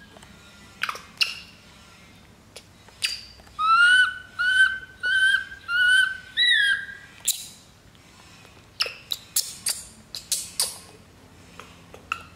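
Infant macaque crying from hunger: a run of five high, whistle-like calls, each about half a second, between about three and a half and seven seconds in. Short sharp squeaks come before them, and a quick flurry of shrill squeaks follows around nine to eleven seconds.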